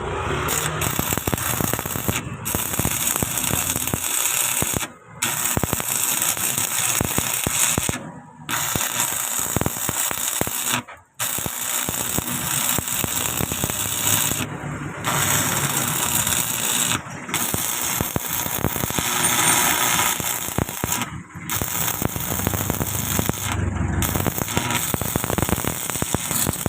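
Electric arc welding on a steel vehicle chassis: a steady, dense crackle as patch plates are welded on. It runs in stretches of two to four seconds, with short, sudden breaks between them where the arc is stopped.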